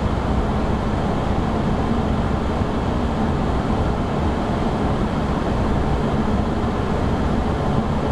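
Steady flight-deck noise of an Airbus A340-300 in the climb: an even rush of airflow with a low hum underneath.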